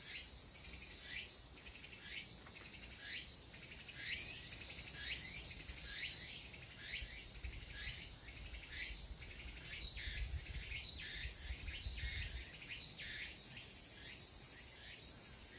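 Insects shrilling in a high-pitched trill that starts and stops every second or so, with a steady string of short falling chirps, about one or two a second, over it.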